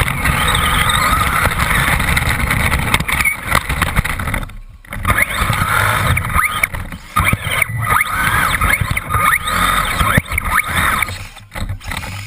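Radio-controlled buggy heard from a camera mounted on it: a motor whine that rises and falls with the throttle, over rattling knocks from the bumpy track. The sound drops out briefly about four and a half seconds in.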